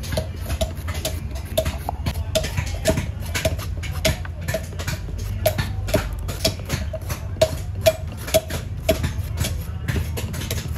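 A short knife blade scraping the brown skin off a shelled coconut kernel in quick repeated strokes, about three a second, each with a short sharp scratch.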